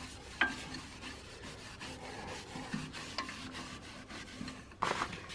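Cloth rubbing boiled linseed oil onto an ash bowl turning on a wood lathe: a soft, steady rubbing, with a sharp knock near the end.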